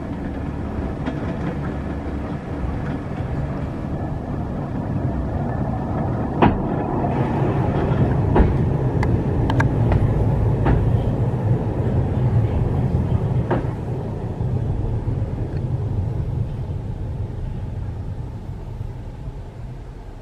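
Hakone Tozan Cable Car funicular car rumbling along its rails as it pulls into the station and slows to a stop, with several sharp clacks in the middle; the rumble fades near the end.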